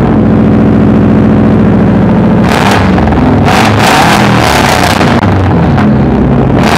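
Straight-piped 2013 Subaru STI's turbocharged 2.5-litre flat-four, heard at its quad exhaust tips: it runs at a steady idle, then is revved repeatedly in sharp blips from about two and a half seconds in.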